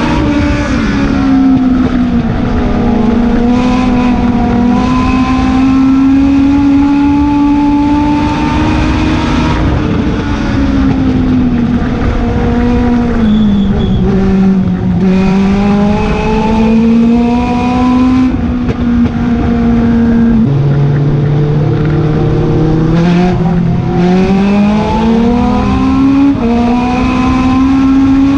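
A Legend race car's Yamaha four-cylinder motorcycle engine at racing speed, heard from inside the cockpit, its pitch climbing and falling again and again as it accelerates and slows, over a steady rush of wind and tyre noise.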